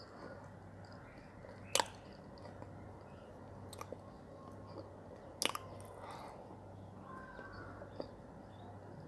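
Soft, non-crunchy chewing of a wet brown clay paste. A few sharp clicks of a metal spoon against a glass dessert cup stand out, the loudest about two seconds in and about five and a half seconds in.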